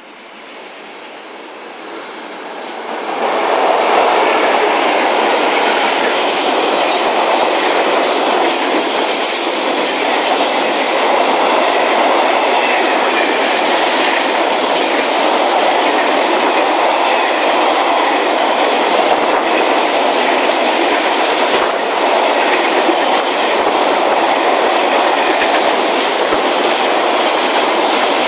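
Freight train hauled by two EF-class electric locomotives approaching and passing. The sound swells over the first few seconds as the locomotives arrive. It then settles into the steady, loud noise of the freight wagons' wheels rolling past on the rails.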